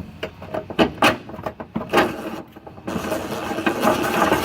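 A few sharp metal clicks and knocks, then about three seconds in a corded electric impact wrench runs for about two seconds, starting a suspension bolt that would not thread by hand.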